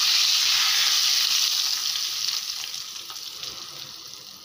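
A hot ghee tempering of cumin seeds and whole red and green chillies is poured over cooked chana dal and sizzles loudly as it hits. The sizzle starts suddenly and dies away steadily over a few seconds.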